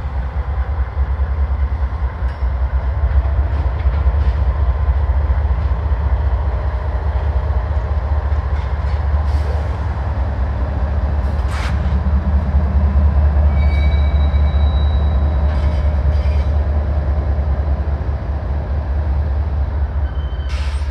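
CSX GE Evolution-series diesel-electric locomotives running light at low speed: a loud, steady low engine rumble. Occasional sharp clicks and a few brief high squeals come through over it.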